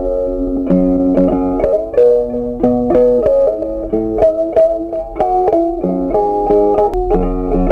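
Background music: a guitar playing a melody of short, quickly changing notes over a steady beat.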